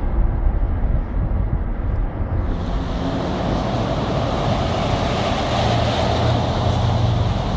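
Steady rumble and road noise of a moving vehicle, growing a louder hiss about two and a half seconds in.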